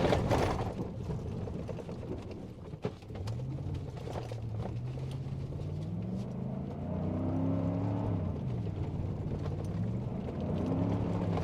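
A vehicle driven over a rough two-track dirt trail, its engine pitch rising and falling with the throttle. Knocks and rattles come in the first few seconds.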